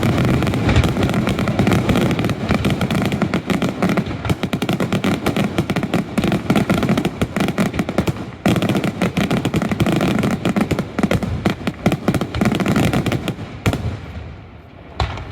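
Daylight fireworks display: a dense, rapid barrage of bangs and crackling, with a brief lull a little past halfway and thinning out near the end.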